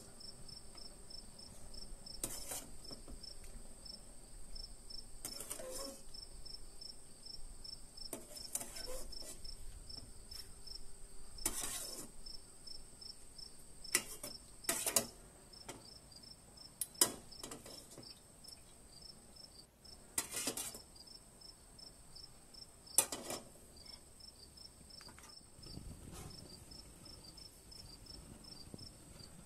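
Insects chirping without a break: a high, rapid, evenly pulsing trill over a steady high buzz. About a dozen sharp clicks and knocks break in at irregular intervals, the two loudest in the second half.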